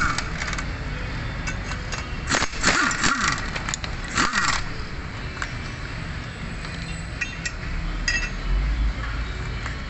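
Impact wrench hammering on the bolts of a wheel hub flange in short bursts of about a second, twice, each winding down with a falling whine as the trigger is released. Lighter metal clinks of the socket and bolts follow near the end.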